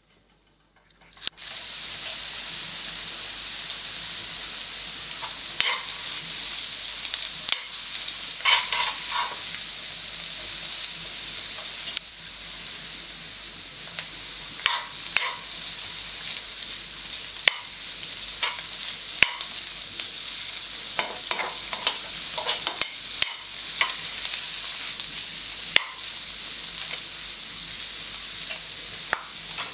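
Sliced king oyster mushrooms sizzling as they fry in an open pan over high heat, with a spatula scraping and knocking against the pan at irregular moments as they are stirred. The sizzling starts suddenly after about a second of near silence.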